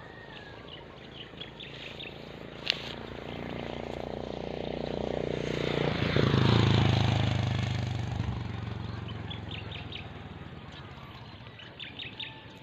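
A motor vehicle passing close by: its engine sound builds, peaks about six or seven seconds in with the pitch dropping as it goes past, then fades away. There is a single sharp tick about three seconds in.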